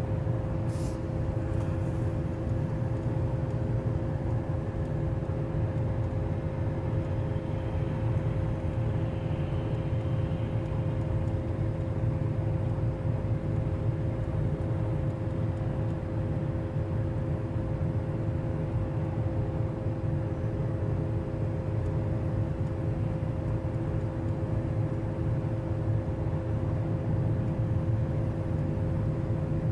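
Steady road and drivetrain noise heard from inside a car cabin while cruising on a highway: a constant low rumble with an even hum over it.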